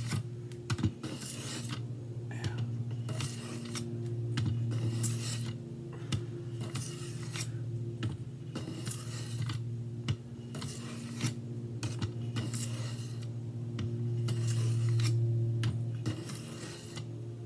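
A steel knife blade stroked back and forth across a Work Sharp benchstone sharpening plate, held at a set angle by a magnetic guide, giving a repeated rasping scrape about once a second. A steady low hum runs underneath.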